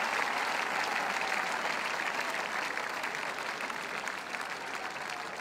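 Large crowd applauding, the clapping slowly dying away.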